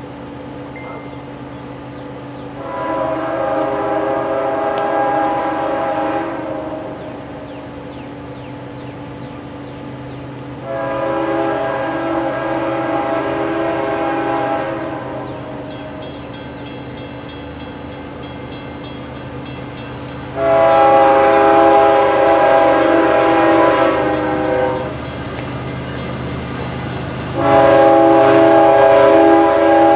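An approaching CSX diesel locomotive's multi-chime air horn sounds four long blasts, the last two clearly louder as the train nears. A steady low rumble from the train runs underneath.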